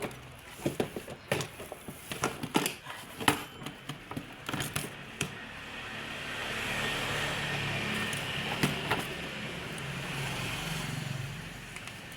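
Scattered sharp clicks and knocks of objects being handled, then a motor vehicle passes, its sound swelling and fading over about five seconds in the second half.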